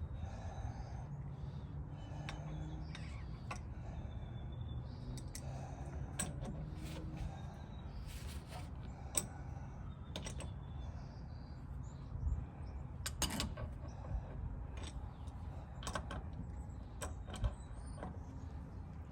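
Scattered clicks and light knocks of tools and fuel filter parts being handled during a fuel filter change, over a steady low hum.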